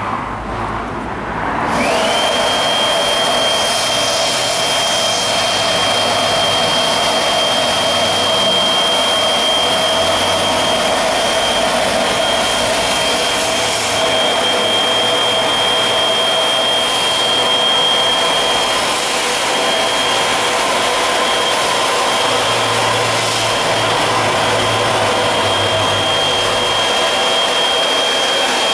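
Cordless battery-powered air inflator pumping air into the tube of an inflatable boat through its valve. It spins up about two seconds in, then runs at a steady rushing whine with a constant high tone.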